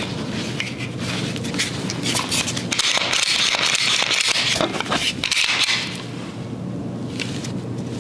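Metal clicks and a scraping, sliding rasp as a Glock 19X's slide is worked and slid off the frame, busiest for about three seconds in the middle.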